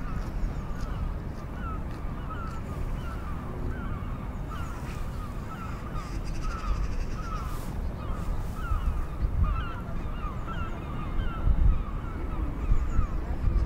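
A flock of birds calling, many short, hooked calls repeating and overlapping, over a steady low rumble that grows louder near the end.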